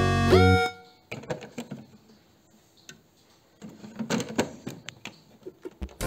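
Electronic jingle from a washMATIC toy washing machine's speaker, ending in a short downward glide about half a second in. Quieter irregular plastic clicking and rattling follow.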